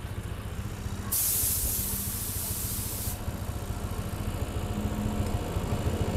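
Carburetted Honda Beat scooter's single-cylinder engine idling steadily while its carburettor is being adjusted. A loud hiss starts about a second in and cuts off about two seconds later.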